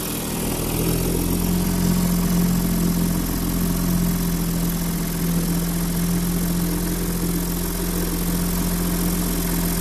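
1940 Johnson MD-15 2½ hp two-stroke outboard motor running steadily at a low, even speed.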